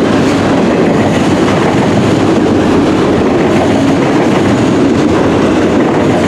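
CN local freight train's cars rolling past close by: a loud, steady noise of steel wheels running on the rails.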